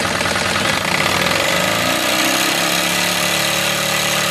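Wilesco D24 model steam engine running fast and chuffing hard in a quick, even beat, driving a stepper-motor generator by belt. About a second and a half in, the pitch slides and the chuffing gives way to a smoother, steady running whir.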